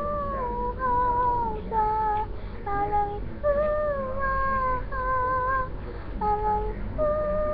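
A high-pitched voice singing a slow melody in held, steady notes, stepping from one pitch to the next.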